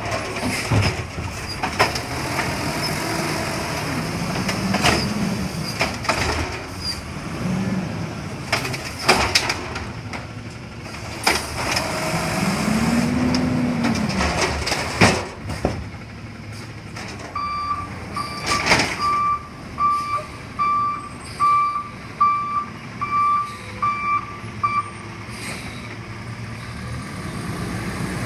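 Automated side-loader garbage truck working a curbside pickup: the diesel engine revs while the hydraulic arm lifts and tips a cart, the pump whines up and down twice, and there are sharp bangs as the cart is shaken out and set down. In the second half a warning alarm beeps steadily, about one and a half beeps a second, for several seconds.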